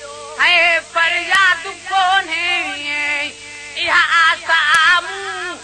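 A man singing a Sindhi devotional song in long, wavering phrases with heavy vibrato and ornaments, over a steady held note.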